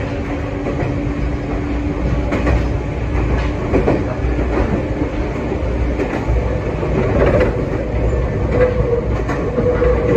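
Meitetsu 6000-series electric train running along the line, heard from the driver's cab: a steady rumble of wheels on rail with occasional clacks over rail joints.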